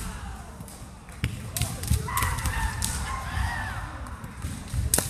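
Kendo bout at close quarters: bamboo shinai knocking and clacking against each other in sharp cracks, the loudest near the end, with dull thuds of feet on the wooden gym floor. A high, drawn-out shout (kiai) rises and falls about two seconds in, over the constant chatter of the hall.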